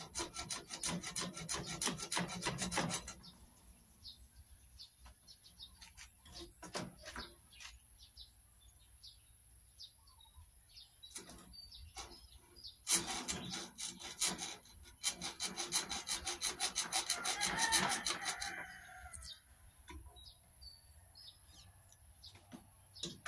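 Hacksaw cutting through the steel hub of an old electric fan's wire guard: runs of quick rasping back-and-forth strokes, one near the start and a longer one later, with scattered single strokes in between.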